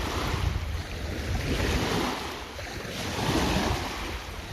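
Sea waves washing on the shore in gentle swells, with wind buffeting the microphone in a low rumble.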